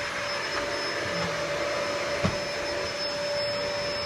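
Eureka Optima upright vacuum cleaner running steadily with a constant whine, sucking at styrofoam packing peanuts. A single short knock sounds about two seconds in.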